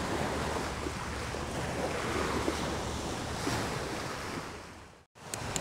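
Small waves washing onto a sandy shore, with wind buffeting the microphone. The sound fades out near the end.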